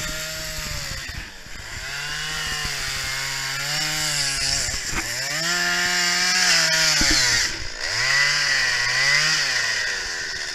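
Chainsaw carving into a wooden log, its engine revving up and falling back several times as the cuts are made.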